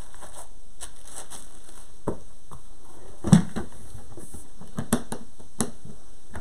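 Aluminium hard case being shut and latched: a thump as the lid comes down a little over three seconds in, then a few sharp clicks as the metal latches are handled, among scattered knocks of things being moved in the case.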